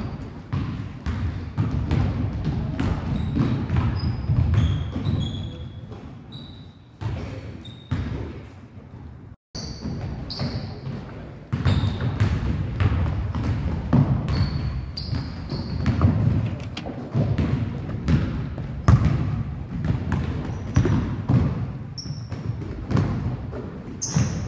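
A basketball dribbled and bouncing on a hardwood gym floor, with players' sneakers squeaking and feet landing as they run the court. The thuds echo in the large gym, and the sound cuts out briefly about nine seconds in.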